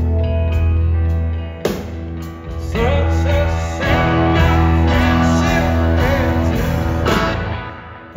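Live rock band playing: electric guitar over sustained chords and heavy bass, the sound dropping away near the end.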